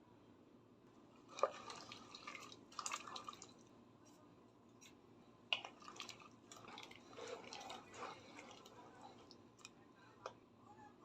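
Faint, intermittent wet kitchen sounds: short drips and splashes of water with a few sharp clicks, the loudest click about a second and a half in.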